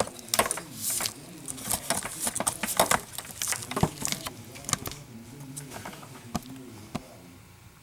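A quick run of light taps and clicks from things being handled, thinning out to a few single ticks after about five seconds.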